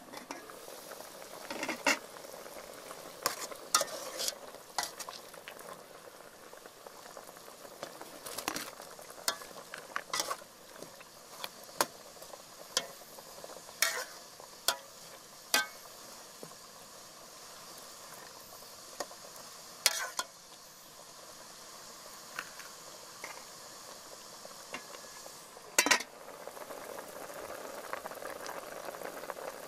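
A metal ladle stirring soup in an aluminium pot, with many sharp clinks of metal on metal, over the steady bubbling of the boil. The bubbling grows louder near the end as the soup comes to a rolling boil.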